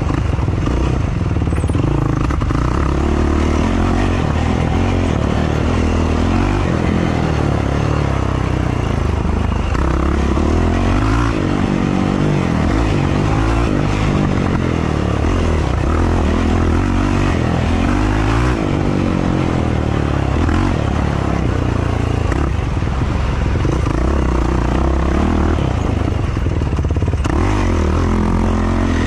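Yamaha YFZ450R quad's single-cylinder four-stroke engine, loud and close, revving up and falling back over and over as the throttle is worked between corners, with occasional knocks from the machine over rough ground.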